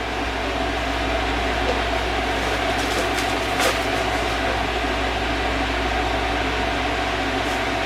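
Steady mechanical hum of an appliance's motor and fan in a small room, with a held tone through it, and a couple of light clicks about three and a half seconds in.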